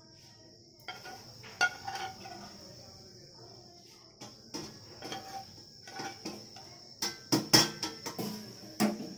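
A ladle knocking and scraping against a steel serving bowl and cooking pan as dal is spooned across, in scattered clinks that come thickest about seven seconds in. Behind it a steady high chirring of crickets.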